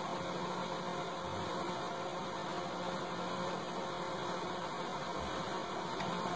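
Steady background hiss with a faint low hum, unchanging throughout: room tone with no distinct event.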